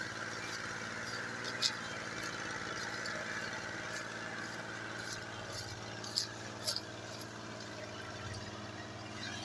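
Diesel tractor engine running steadily under load as it slowly pulls a trailer heavily loaded with sugarcane, with a few short sharp clicks, two of them close together past halfway.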